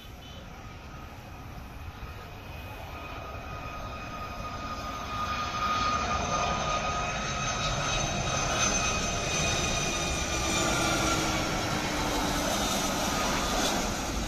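Jet engines of a Boeing 757 freighter on final approach, getting louder over the first six seconds as it comes in low and then holding steady. Its whine drifts slightly lower in pitch as it passes.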